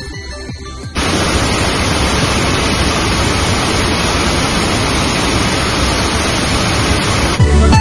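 A loud, steady rushing hiss with no tone or rhythm. It cuts in abruptly about a second in and cuts off just before the end, framed by electronic music.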